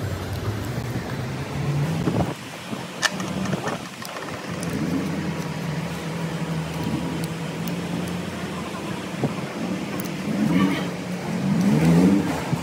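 An engine running steadily, its pitch rising briefly about five seconds in and again, louder, near the end, with a few light clicks early on.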